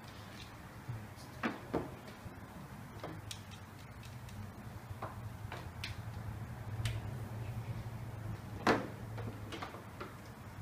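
Irregular clicks and light knocks of cables, clamps and fittings being handled in a car's open engine bay, with a sharper knock near the end, over a low steady hum.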